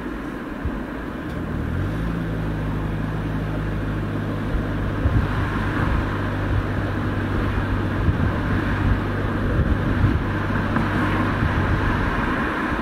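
Exhaust note of a Toyota Camry hybrid's 2.5-litre four-cylinder petrol engine, which cuts in about two seconds in, runs at a steady speed and shuts off near the end, with the car otherwise moving on its electric motor. Steady road and tyre noise runs underneath.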